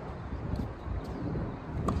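Wind buffeting the microphone with a steady low rumble, and one sharp click near the end.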